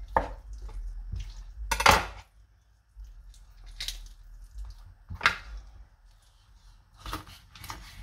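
A large kitchen knife cutting raw rabbit into joints on a wooden cutting board: about six sharp knocks and scrapes of the blade, a second or two apart, with quieter handling of the wet meat between them.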